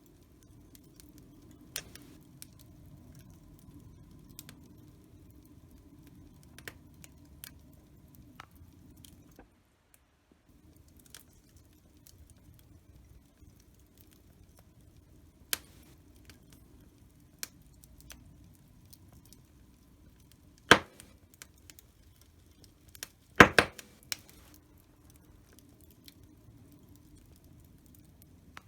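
Wood fire burning in a fireplace: a low steady rumble of flames with scattered crackles. The sound drops out briefly about ten seconds in. There is a sharp loud pop about 21 seconds in and a quick cluster of cracks a couple of seconds later.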